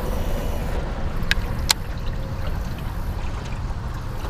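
Steady wind and lapping water around a small aluminium boat, with two sharp clicks a little over a second in.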